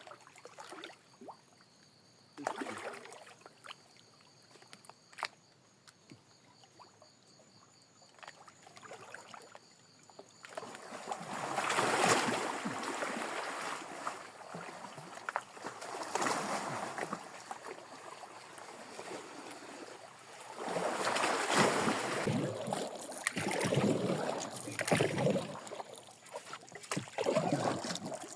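A small boat being paddled: water splashing and sloshing in swells every few seconds, with no engine. The first ten seconds are quieter, with only a few light knocks.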